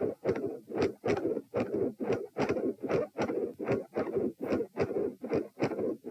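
Handheld Doppler probe on the chest picking up heartbeat blood flow: regular whooshing surges in pairs, about two to three surges a second, which the uploader takes for multiple heart murmurs.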